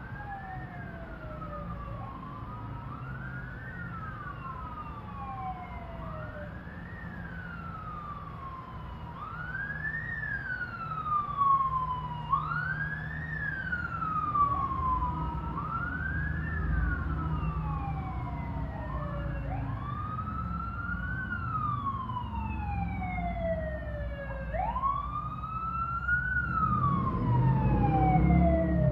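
Sirens of a motorcade's escort vehicles going by: at least two overlapping wails, each rising quickly and falling slowly about every three seconds, over traffic rumble that grows louder near the end.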